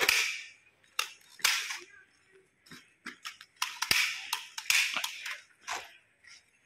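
Gunshots in a shootout, about eight sharp cracks fired in irregular quick succession, some in pairs.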